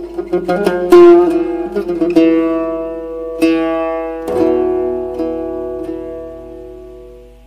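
Oud plucked with a plectrum, playing a closing phrase in makam Şehnaz: a quick run of notes, then a few single struck notes, the last left ringing and dying away near the end.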